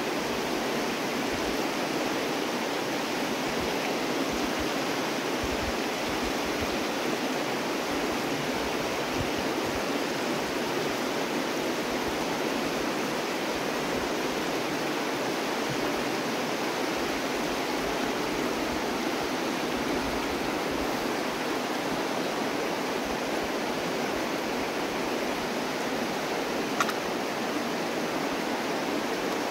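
Shallow river water rushing steadily over cobbles and rocks, a continuous even rush of the North Fork of the Virgin River. A single brief click near the end.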